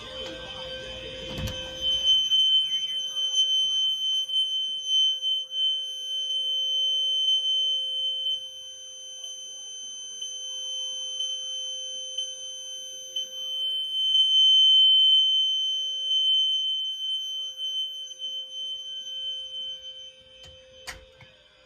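A fire alarm signalling device sounds one steady, high-pitched electronic tone that does not pulse. The tone starts about two seconds in and stops shortly before the end. There is a click near the start and another near the end.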